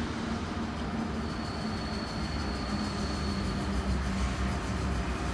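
RER B commuter train pulling into an underground station, a steady rumble and hum with a thin high whine from about a second in for a couple of seconds.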